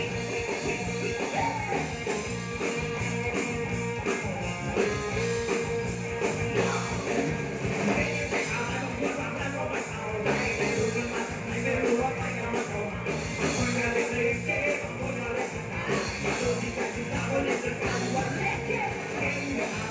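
Live rock band playing a song: electric guitar and drum kit with a singer, heard from the audience through a phone's microphone.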